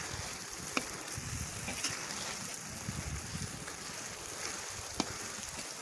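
Sliced onions sizzling steadily in deep hot oil in a kazan, the frying stage of a plov, with a few sharp clicks.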